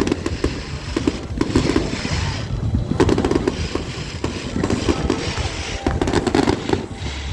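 New Year fireworks going off: a dense run of crackles and bangs that keeps on throughout, with music playing underneath.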